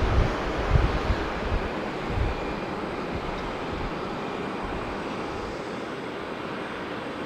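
Jet noise from an Airbus A350-900's Rolls-Royce Trent XWB engines on the landing roll: a broad rushing noise that slowly dies away. Wind buffets the microphone in the first two seconds or so.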